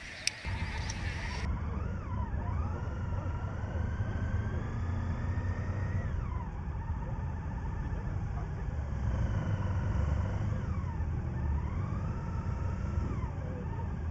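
Motorcycle engine running on a slow ride, its pitch rising and falling with the throttle, over a heavy low rumble. A sharp click comes just before the sound starts, near the beginning.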